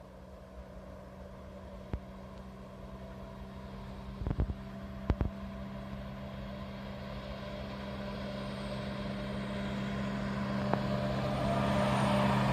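DB Class 218 diesel-hydraulic locomotive approaching with a passenger train: a steady low engine drone that grows steadily louder as it nears. A few brief thumps about four and five seconds in.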